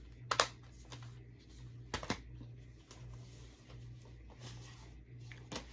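Quiet room tone with a steady low hum, broken by a few sharp clicks: one shortly after the start, one about two seconds in, and a fainter one near the end.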